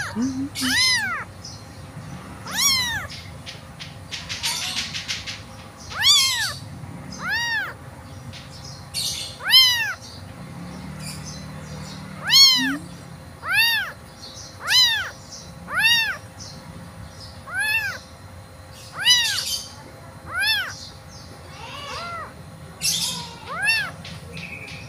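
Young tabby kitten meowing over and over, thin high cries that each rise and fall in pitch, about one every second or two. These are the distress calls of a kitten separated from its mother.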